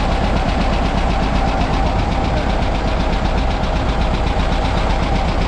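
Air-cooled Volkswagen bus flat-four engine idling steadily in its open engine bay, freshly started after a home repair whose ignition timing, by the owner's own admission, was set wrong.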